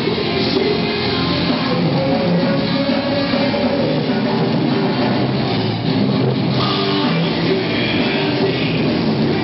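Heavy metal band playing live: distorted electric guitars, bass guitar and drum kit, loud and continuous.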